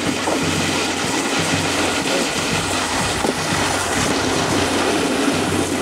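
A box carrying a rider sliding down a concrete path: a loud, steady scraping rumble.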